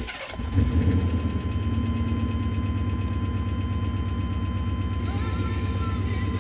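1999 Chevy Tahoe's V8 catching at the end of cranking about half a second in, then idling steadily with a rhythmic tapping: a really bad lifter tap.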